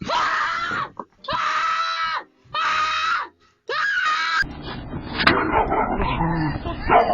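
A person screaming four times, each scream about a second long with short gaps between, cut off abruptly about four seconds in. A dense jumble of noise follows.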